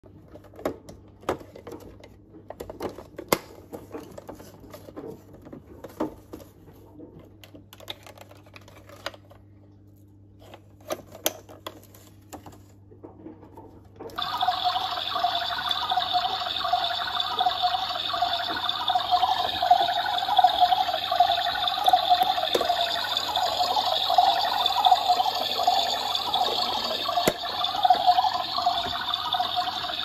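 Pink battery-powered toy washing machine: scattered clicks and taps of its plastic body and door being handled, then about halfway through its small electric motor switches on and spins the drum with a steady whir.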